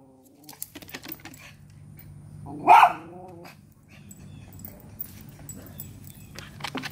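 A small dog barks once, loudly, about three seconds in, with scattered light clicks and crackles before and after it and a faint steady low hum underneath.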